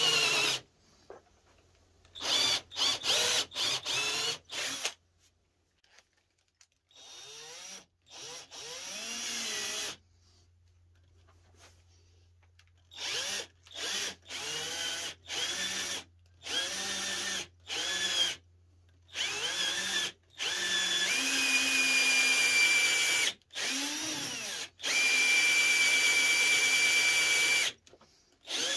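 Cordless drill boring into the edge of a wooden guitar body, run in many short trigger bursts whose pitch rises and falls as the motor speeds up and slows. Near the end it runs in two longer, steady stretches.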